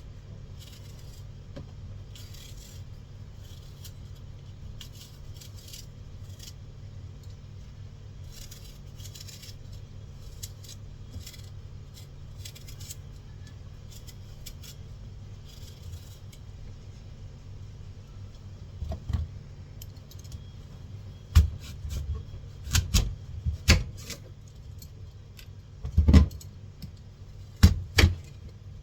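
Kitchen knife and utensils at work while fruit is cut up: faint light clicks, then in the last third several sharp knocks and clatters, over a steady low hum.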